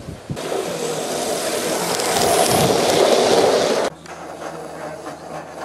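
Loud, even rolling rumble of gauge 1 garden-railway train wheels running on the track, growing louder and stopping abruptly about four seconds in. It is followed by the quicker, softer rhythmic beat of the live steam locomotive under way.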